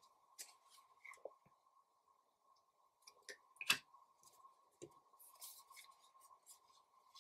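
Trading cards being handled and set down on a wooden table: scattered soft clicks and brief slides, the sharpest tap a little past halfway, over a faint steady high tone.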